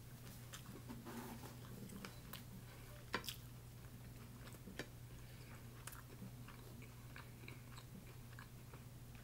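Faint chewing and small clicks and crackles of snow crab shell being picked apart by hand, with two sharper clicks about three and five seconds in, over a low steady hum.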